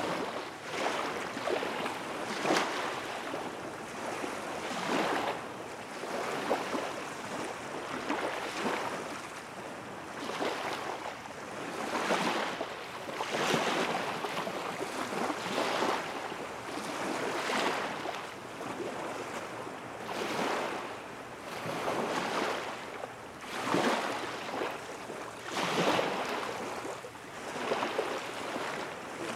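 Small waves washing against the shore, one rush of water every two seconds or so over a steady background wash.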